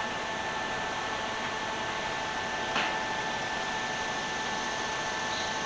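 Steady fan-like whirring hiss with a faint hum in it, and a single faint click almost three seconds in.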